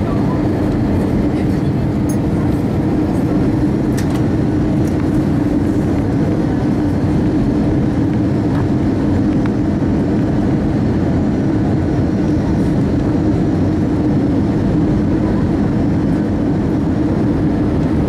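Steady engine and airflow noise in the cabin of an Airbus A319 from a seat over the wing, as the airliner comes in low over the runway to land, with a few faint clicks.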